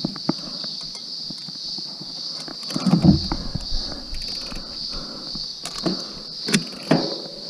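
Steady high-pitched insect chorus droning throughout. A few short knocks and rattles cut across it, the loudest about three seconds in and two more near the end.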